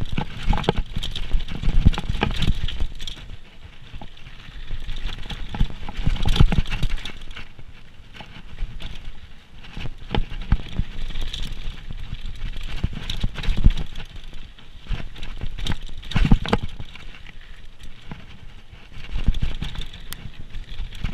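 Downhill mountain bike running fast over a rough trail: a dense, irregular clatter and rattle of the bike over rocks and roots, with tyre noise, and heavier knocks in surges every few seconds on the biggest bumps.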